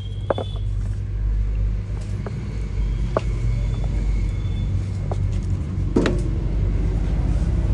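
A steady low engine rumble, with a handful of short, sharp metallic clicks and taps.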